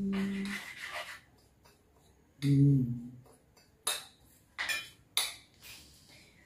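Kitchen utensil sounds: a spoon scraping in a container, then three short clinks of a spoon and containers on the countertop.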